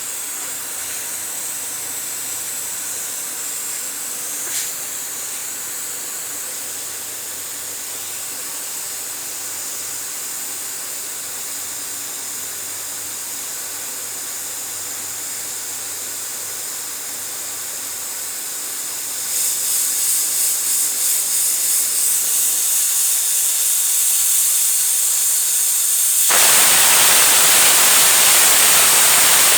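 Pressure cooker whistle venting steam in a steady high hiss. About 19 s in, the hiss starts to pulse about twice a second as the weight lifts and falls. About 26 s in, it breaks into a louder, continuous whistle.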